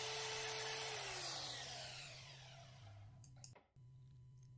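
DeWalt DWM120 portable band saw running through a metal blank held in a vise, then switched off about a second in, its motor winding down with a falling whine. A few light clicks follow near the end.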